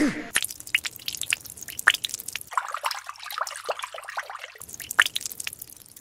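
Coolant from a PC custom water-cooling loop draining through a tube into a plastic bottle: irregular drips and small splashes of liquid.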